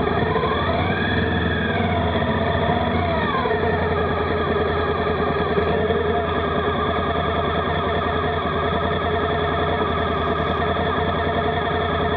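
Background music with distorted electric guitar: sustained chords under a melody line that slides up and down.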